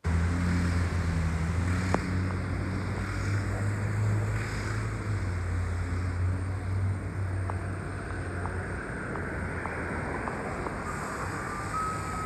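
Street traffic noise with a low engine drone, as a 2009 NABI 40-LFW hybrid transit bus approaches and pulls in close. About a second before the end, an alternating two-tone warning beep starts.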